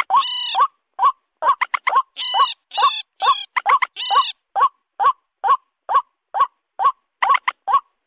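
Bird-lure recording combining white-breasted waterhen and moorhen calls. Short calls repeat rapidly, about two to three a second, and in the first half longer harsh notes with several overtones are mixed in.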